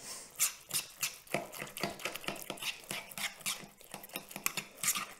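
A utensil stirring guacamole in a plastic mixing bowl: irregular clicks, taps and scrapes, several a second.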